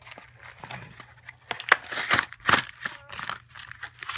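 Plastic blister-pack packaging being handled and pulled open: a run of sharp crinkles and crackles, loudest in a burst of snaps in the middle.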